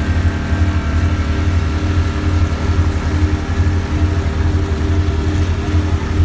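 Boat engine running steadily while the boat is underway, a continuous low drone.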